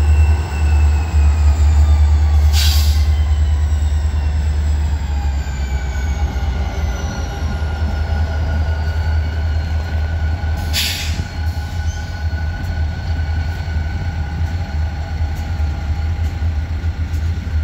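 Union Pacific GP40 diesel locomotives hauling a freight train past and away, with a deep rumble and several whining tones that slowly fall in pitch, then freight cars rolling by with a steady wheel squeal. Two short hisses cut in, about three and eleven seconds in.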